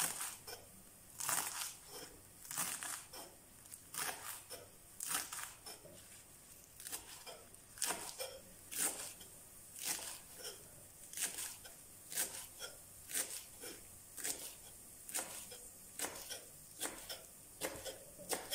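Chef's knife slicing sorrel leaves into thin strips on a wooden cutting board: a run of short cuts, each ending in a tap of the blade on the wood, uneven in spacing at about one or two a second.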